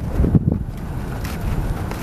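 Wind buffeting the microphone: a low, uneven rumble, gustiest in the first half second, then steadier.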